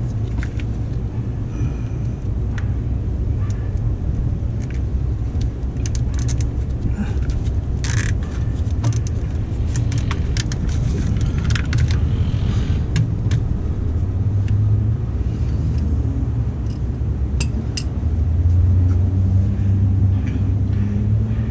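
Cable ties clicking as they are pulled tight around wiring, in short clusters of clicks and rattles, mostly in the middle stretch and once more near the end. Underneath is a steady low rumble.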